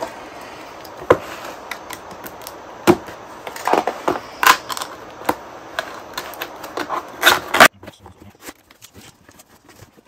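Cardboard box and packaging being opened and handled: continuous rustling and scraping with scattered sharp knocks and clicks, going much quieter about three-quarters of the way through.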